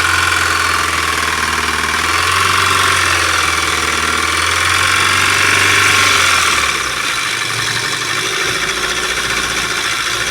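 Mahindra Scorpio mHawk diesel engine running and being revved, with a tak-tak knock; it builds up and then falls back about seven seconds in. The knock is what the mechanic traces to a seized and badly worn number-one connecting-rod bearing.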